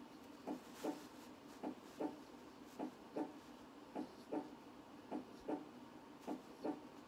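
Heartbeat sound: a steady lub-dub double beat repeating a little more than once a second, over a faint steady hum.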